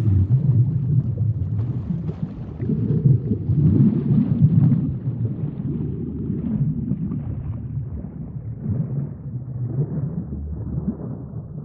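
Deep, muffled rumbling that swells and eases every second or two.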